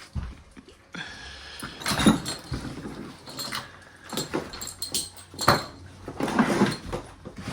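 Handling noises from the TV's casing: several knocks and scrapes, the loudest a little after 5 seconds in.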